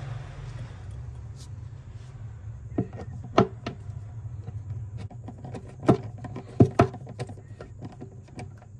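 Metal nut driver clicking and knocking against an RC car's wheel nut and hub as the wheel nut is tightened, a run of sharp clicks starting about three seconds in with a few louder knocks. A steady low hum sits underneath.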